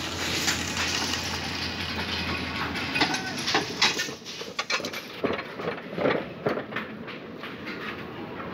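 Loaded manganese ore tub hauled up an inclined rail track by cable, its steel wheels rattling on the rails over a steady hum. From about four seconds in, irregular metal clanks and knocks of the ore tubs.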